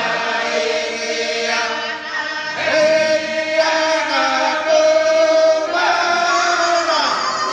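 A choir of voices singing a hymn together in harmony, with long held notes; a short break falls about two seconds in before the next phrase begins.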